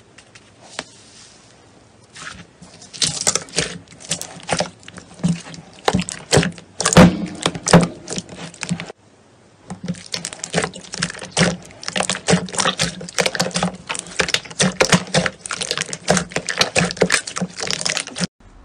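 Hands pressing and squeezing a bowl of glossy slime: a dense run of wet crackling clicks and pops. It starts about three seconds in, breaks off briefly about halfway through, then crackles on steadily.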